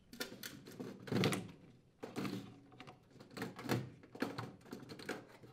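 Furnace condensate drain trap assembly and its ribbed plastic hoses being handled and lifted out: a string of irregular light knocks, clicks and rustles.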